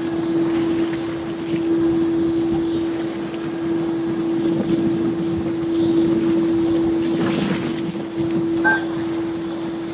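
Wind buffeting the microphone over a steady low hum held at one pitch.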